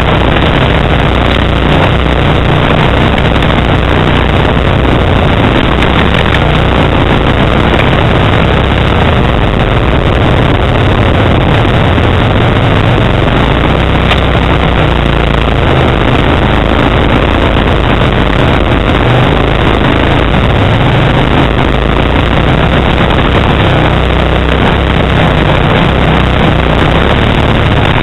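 Kawasaki Brute Force 750 ATV's V-twin engine with a Muzzy exhaust, running loud and steady while riding along a trail, its low note wavering a little with the throttle.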